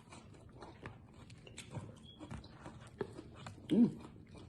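Close-up crunching and chewing of deep-fried, Hot Cheeto-crusted frog legs: many small crisp crackles. About four seconds in comes one short, loud vocal sound that rises and falls in pitch.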